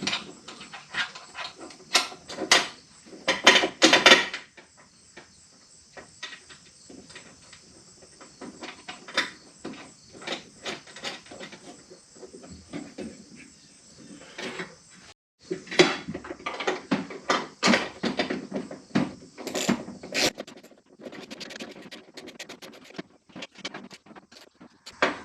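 Handling noise from work on a truck door: scattered clicks, taps and knocks of tools and parts, with a few louder short noisy bursts.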